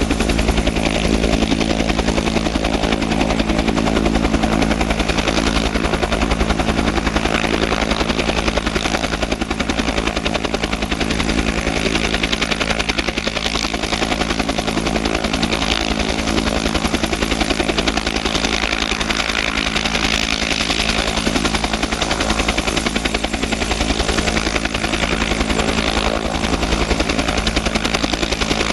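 Bell 205A-1 helicopter running on the ground with its rotors turning: the Lycoming T53 turboshaft runs steadily under the rapid, even beat of the two-bladed main rotor.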